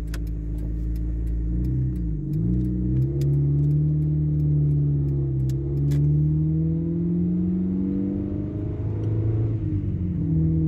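Honda Civic's engine heard from inside the cabin while driving. Its pitch drops sharply about two seconds in, as at a gear change, then climbs under acceleration and slowly falls back, with another dip and rise near the end.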